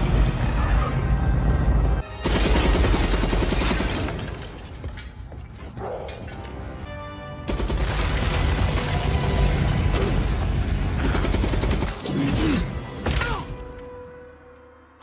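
Film battle soundtrack: music mixed with heavy booms and dense crashing effects. It dips about two seconds in, eases for a few seconds mid-way, surges again, and then fades out near the end.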